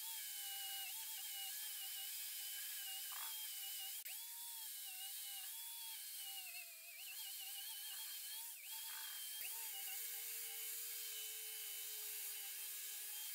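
Angle grinder with a wire cup brush scouring a steel block: a steady motor whine over a high scrubbing hiss, the pitch sagging several times as the brush is pressed onto the metal and recovering as it eases off.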